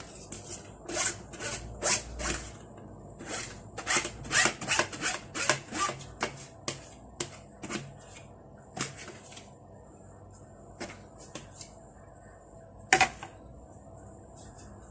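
Quick rustling and clicking as drained sweet corn kernels are tipped and spooned into a dish, busy for the first several seconds, then a few scattered taps and one sharp clack near the end.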